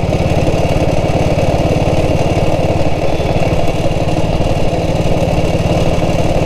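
1947 BSA B31's 350 cc single-cylinder four-stroke engine running steadily, its firing beating at an even, rapid pace.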